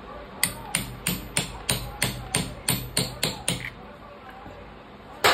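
Hammer tapping a tube to drive the kick-start oil seal onto the kick-starter shaft in a TVS Star Sport motorcycle engine's clutch cover. There are about a dozen sharp strikes, roughly three a second, then a pause and one harder strike near the end.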